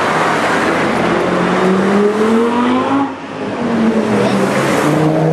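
Audi cars driving past one after another. A saloon's engine climbs in pitch as it accelerates, then falls away after about three seconds as it goes by. Near the end a second engine, an Audi TT RS roadster's, comes in with a steady note.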